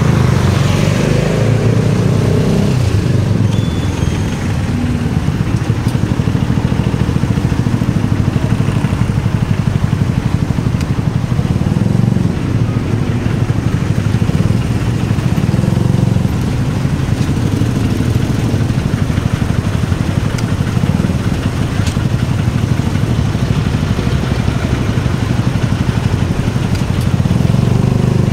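Motorcycle engine running under way, its note rising and falling a few times.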